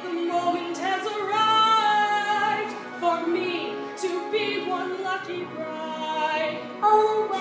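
A woman singing an aria into a handheld microphone, with held notes and vibrato and a louder note near the end.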